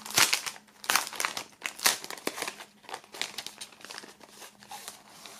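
Sealed clear plastic sleeve being pulled open and handled, crinkling in sharp irregular crackles, loudest in the first couple of seconds and lighter after.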